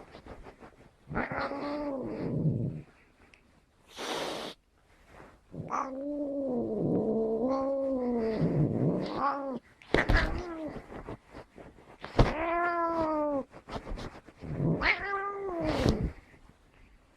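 A domestic cat caterwauling: four drawn-out yowls that waver up and down in pitch, the second one long. There is a short hiss-like burst of noise about four seconds in.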